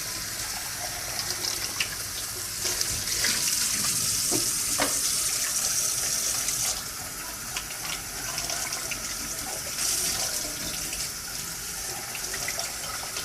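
Kitchen tap running steadily, with the water splashing over juicer parts being rinsed in a sink. A few light knocks are heard as the parts are handled.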